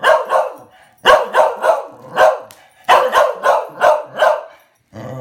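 A dog barking in quick bursts of two to four sharp barks, about fifteen in all, at a sheet of bubble wrap held up in front of it. A steady drawn-out voice-like sound starts just at the end.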